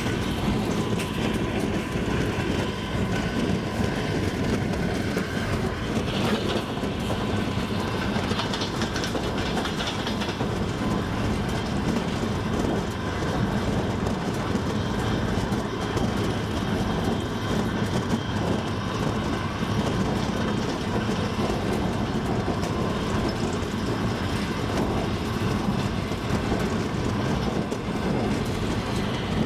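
Double-decker passenger train running at speed, a steady rumble with the clatter of its wheels over the rails.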